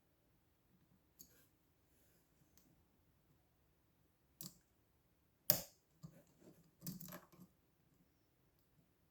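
Small metallic clicks and taps of lock-picking tools working in a lock, with the sharpest click about halfway through and a quick run of rattling clicks just after.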